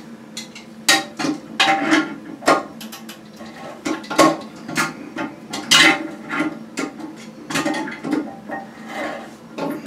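Slip-joint pliers clicking and clanking against the fill valve's locking nut under a toilet tank as it is worked loose, in an irregular string of sharp knocks.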